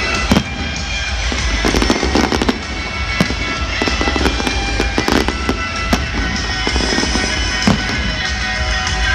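Aerial fireworks shells bursting, a string of sharp bangs at irregular intervals, some in quick clusters, with music playing underneath.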